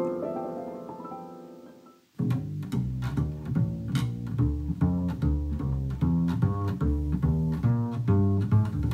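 A piano excerpt dies away and cuts off about two seconds in; then a double bass played pizzicato starts, a steady run of short plucked low notes.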